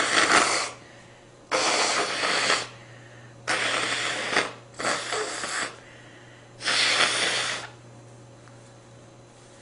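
A person's nose: five loud, noisy breaths forced through the nose, each about a second long with short pauses between, from a nose irritated by rose scent.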